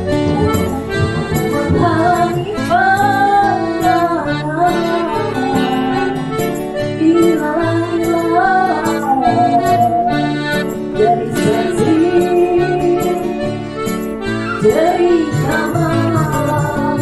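A woman singing a melody into a microphone over a music backing track.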